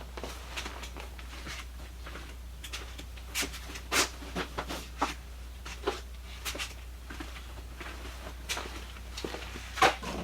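Scattered rustles and light knocks of packaged goods being handled, a few sharper clicks near the middle and just before the end, over a steady low hum.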